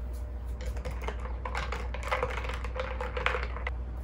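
Ice cubes clinking and rattling against a drinking glass as iced coffee is stirred: a rapid run of clicks that starts about half a second in and stops shortly before the end, over a steady low hum.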